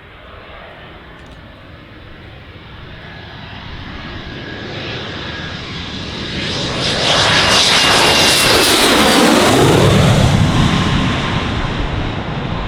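Panavia Tornado's twin RB199 jet engines on take-off. The deep jet rumble builds steadily, is loudest for a few seconds as the jet passes with a sweeping, falling tone, then settles into a heavy low rumble that sounds like an earthquake.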